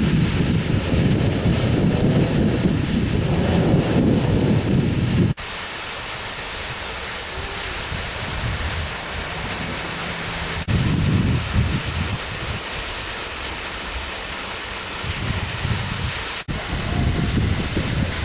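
GWR Large Prairie 2-6-2T tank locomotive standing with steam hissing steadily, while wind buffets the microphone in low gusts for the first few seconds, briefly around the middle, and again near the end.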